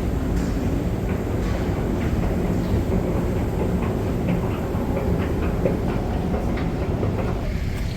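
Metro train running: a steady rumble with a run of quick clicks and rattles in the middle.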